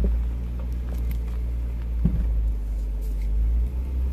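A 2016 Jeep Wrangler Unlimited Rubicon's 3.6-litre V6 engine drones steadily under load as the Jeep climbs a steep dirt hill, heard from inside the cabin. A brief thump comes about two seconds in.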